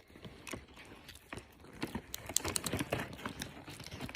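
A pet chewing and crunching a piece of dried fruit: a run of quick, irregular small clicks and crunches that come thicker in the second half.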